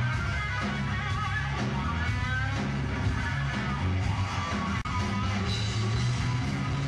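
Live rock band playing, with electric guitars, bass and drums going together steadily.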